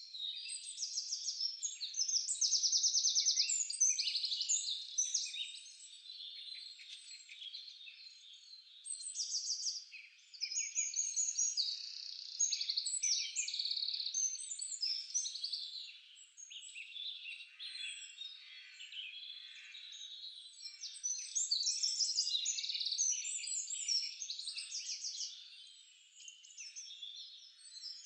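Birdsong: several birds chirping and singing fast trills over one another, in waves that swell and fade.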